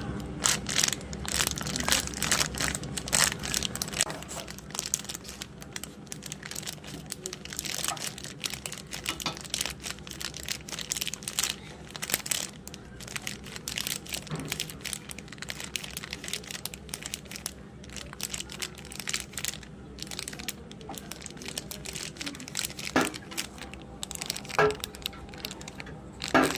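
Gym chalk being crushed into crumbles: a dense run of dry crunching and crackling, busiest in the first few seconds, with a few sharper snaps near the end.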